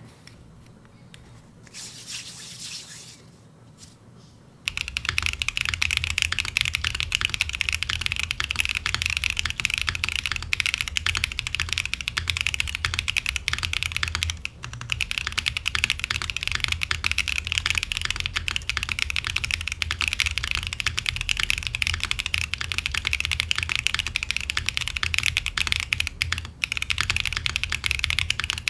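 Fast, continuous typing on a gasket-mounted Raiden64 mechanical keyboard with a POM plate, lubed Geon Clear tactile switches and GMK keycaps. The typing starts about five seconds in after a quieter stretch and pauses briefly once near the middle.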